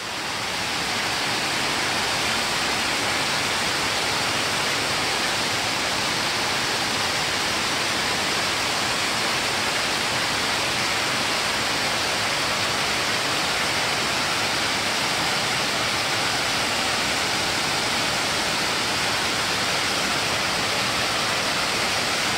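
Waterfall cascading down tiered rock ledges: a steady, unbroken rush of falling water.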